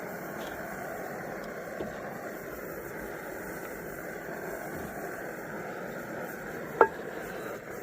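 1946 Coleman 530 pocket stove's pressurized gasoline burner burning steadily under a pot of water, with one sharp click near the end.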